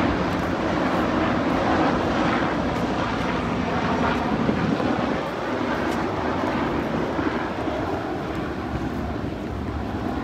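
Wind buffeting the phone's microphone: a steady, loud rushing rumble that eases slightly about halfway through.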